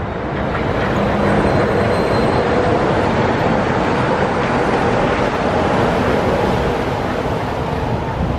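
Walt Disney World Mark VI monorail running past overhead on its concrete beamway. It makes a steady rush that swells about a second in and holds.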